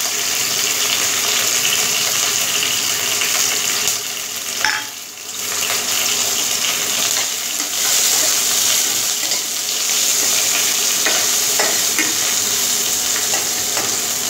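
Sliced onions and curry leaves sizzling in hot oil in a non-stick kadai, stirred with a steel spatula that now and then scrapes and taps against the pan. The sizzle drops briefly about five seconds in.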